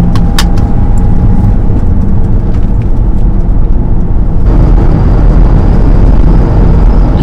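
Engine and road noise inside the cab of a VW T3 Syncro van on the move, a steady low drone. A couple of brief clicks come near the start, and the noise grows a little louder and brighter about halfway through.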